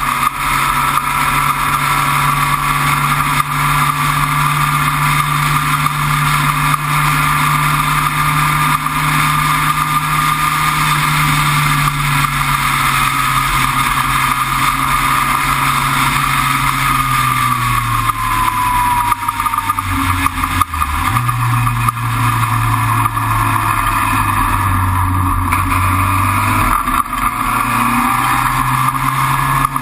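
Sports racing car's engine running hard on track, heard from onboard over wind and road noise. About two-thirds through, the engine note drops in steps, then climbs again near the end.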